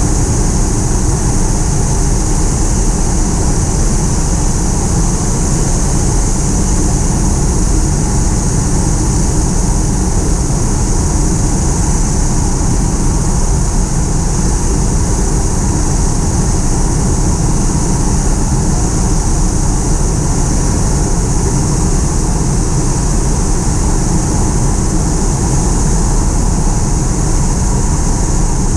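Cabin noise inside a Pilatus PC-6 Porter in a descent: the steady drone of engine and propeller with rushing air and a high, even whine over it.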